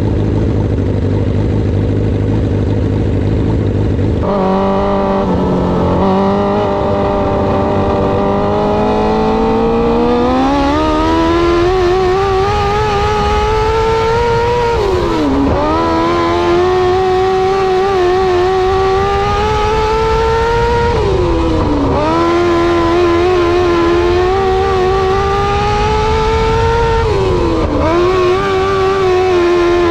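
A Restricted 600 micro sprint car's 600cc motorcycle engine, heard from the cockpit. It runs at a low steady note, then opens up about four seconds in and climbs in pitch for several seconds. After that it runs hard at high revs, backing off briefly and pulling back up about every six seconds, three times in all.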